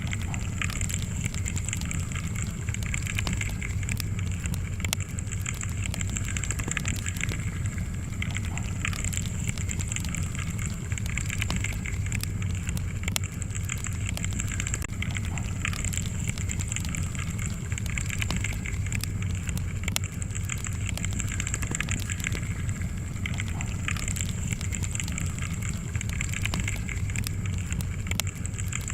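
Wood fire burning in a fireplace, with frequent small crackles and pops scattered over a steady low rumble.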